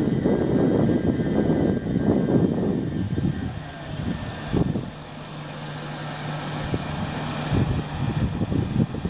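A train rumbling at a station platform: a loud low rumble that eases off about three and a half seconds in, leaving a steady low hum, then builds again near the end.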